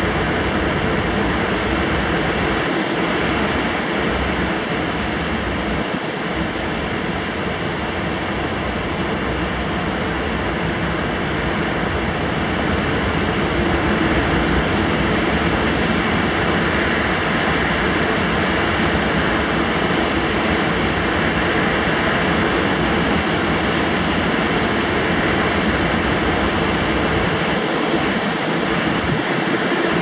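Storm-force typhoon wind and heavy driving rain blowing steadily past high-rise tower blocks, the wind funnelled between the buildings; it grows a little louder about halfway through.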